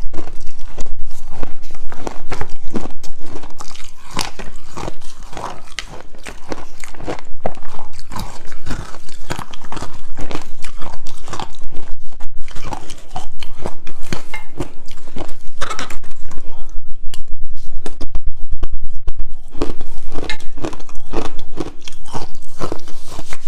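Ice chunks being bitten and chewed close to the microphone: a loud, rapid crunching and cracking that goes on with only short lulls.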